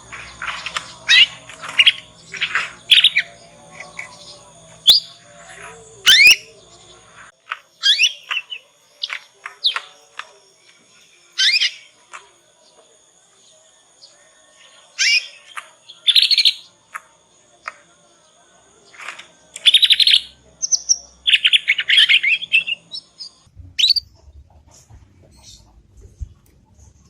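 Young domestic canary's immature twittering song as it learns to sing: scattered short chirps and quick rising whistled notes, a quiet pause about halfway through, then a few short buzzy trills.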